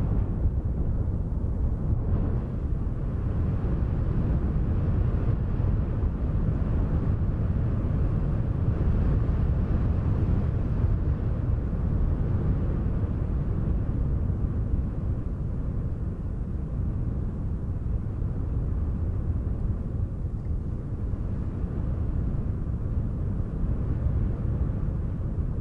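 Wind blowing steadily: a low, even rumble with no distinct events.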